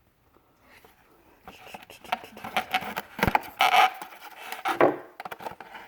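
Retail packaging of an SSD being opened by hand: irregular scraping, rubbing and crackling, with a sharp click about three seconds in. It starts after a quiet second and a half.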